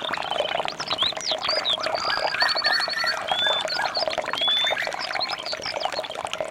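A dense chorus of wild birds chirping and whistling, many short overlapping calls with a quick trill about two seconds in, over a busy layer of lower calls.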